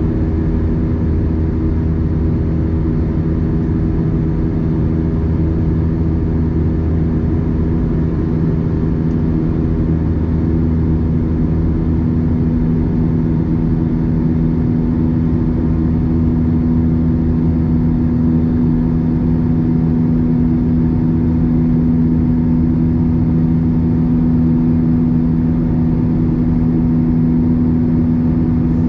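Airbus A320 cabin noise during the climb after takeoff: the steady drone of the jet engines and rushing air, with a few steady low hums, heard from inside the cabin over the wing. It grows slightly louder in the second half.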